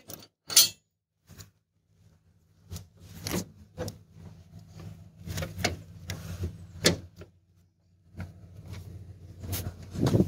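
Farm tractor engine idling as a low steady hum, under a string of sharp clicks, knocks and rattles. The hum drops out briefly just before eight seconds, then comes back.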